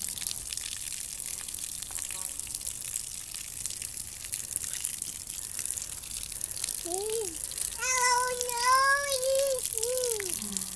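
Water spraying steadily onto a lawn with a continuous hiss. About seven seconds in, a toddler's high-pitched voice joins it for around three seconds.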